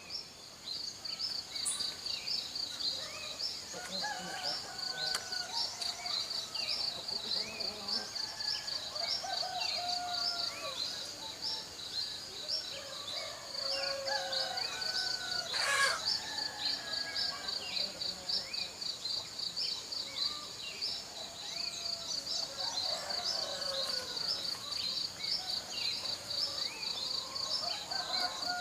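Insects chirping in a fast, even pulse, with birds calling now and then in short whistled phrases that rise and fall. A single sharp click comes about halfway through.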